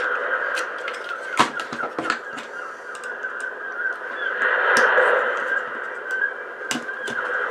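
A few sharp clicks and knocks of small ice-maker parts being handled, over a steady background hiss that swells briefly halfway through.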